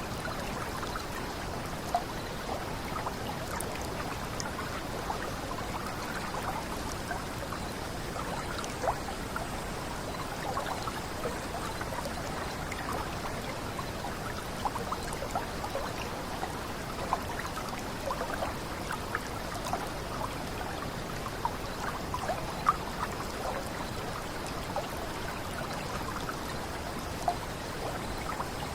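Water running over a small cascade: a steady rush with many small bubbling plinks and splashes, and a few louder drips now and then.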